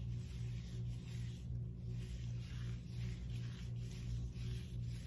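Music with a regular low beat playing, with the soft rubbing and squishing of gloved hands working hair dye through hair.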